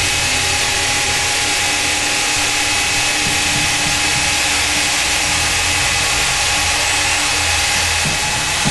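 Belt sanding and buffing machine running unloaded: a steady whirring hiss with a high whine over it. A short knock comes near the end.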